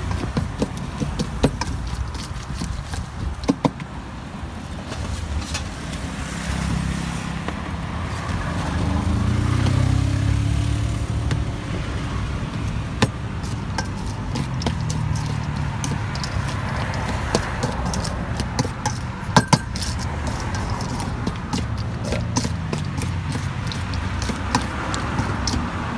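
A metal spoon clinking and scraping against a stainless steel bowl while pomelo salad is tossed, with scattered sharp clinks. Road traffic rumbles underneath, with vehicles passing, loudest about ten seconds in.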